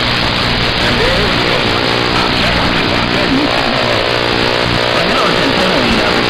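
CB radio hiss with faint, garbled voices breaking through it, over a steady low truck-cab hum.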